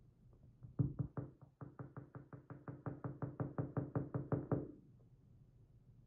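A quick, even run of about twenty light knocks, about five a second, growing louder and stopping suddenly near the end. They come from the Lips Octro lock cylinder being tapped against the bench mat to shake out its pin stacks.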